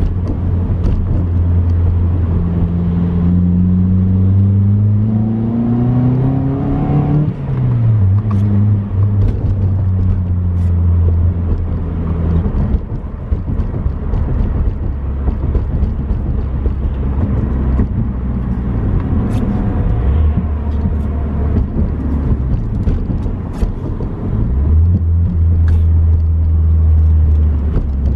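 Mitsubishi Lancer's engine and exhaust heard from inside the cabin while driving: the engine pitch climbs for a few seconds under acceleration, drops sharply with a gear change about seven seconds in, then runs at a steady cruising drone with road noise.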